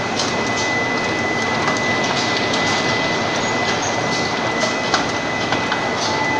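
Rotary bottle filling and capping machine running: a steady mechanical din with scattered sharp clicks, over a constant high whine.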